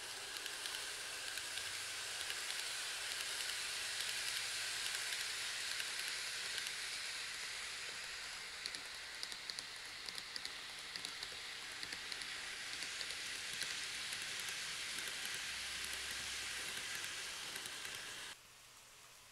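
N gauge model of a 103 series electric train running along the layout track, giving a steady high whirring hiss of motor and wheels on rail, with a run of light clicks in the middle. The sound cuts in suddenly and cuts off suddenly about a second before the end.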